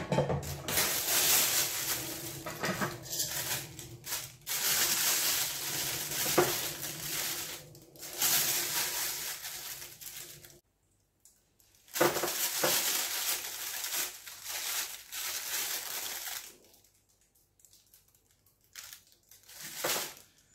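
Plastic roasting bag crinkling and rustling as hands work at its top, in two long stretches with a short silence between them, then only a few faint rustles near the end.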